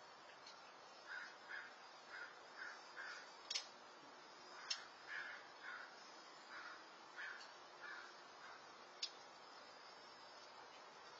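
A bird calling faintly in a run of about a dozen short calls, roughly two a second, that stops after about eight seconds, with a few sharp ticks among them.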